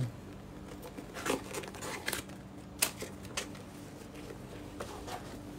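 Paper crinkling and rustling as hands pull stuffing paper out of a new shoe, in a few separate sharp crinkles over a faint steady hum.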